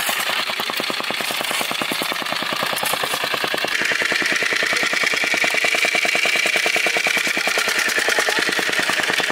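Motorised construction machine hammering in a fast, even rhythm, with a higher steady whine joining about four seconds in.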